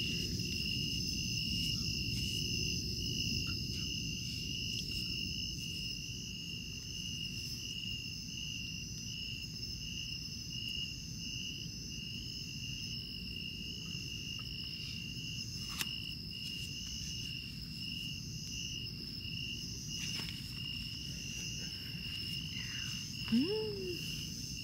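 Crickets chirping steadily at night: one continuous high trill with a slightly lower chirp pulsing about twice a second.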